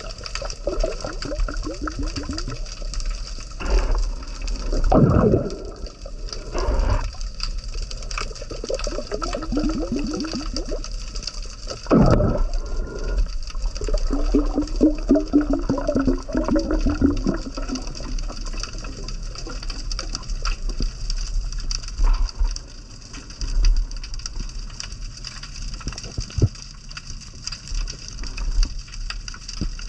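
Muffled underwater sound while a diver swims: water rushing and gurgling around the recorder, with a constant fine crackle and two stronger whooshes of moving water.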